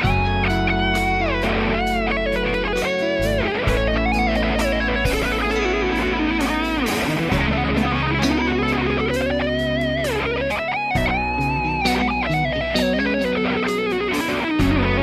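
Electric guitar playing improvised lead lines, single notes with string bends and vibrato. Underneath are low sustained notes that change every few seconds.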